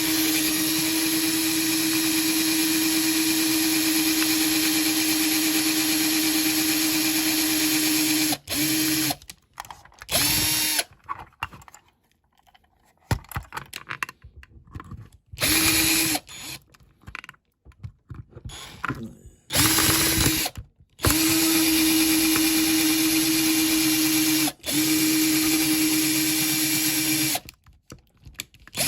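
Small electric drill running at a steady speed while drilling out the rivets that hold a diecast model car's base plate, for about eight seconds, then in a string of short starts and stops before two longer runs near the end.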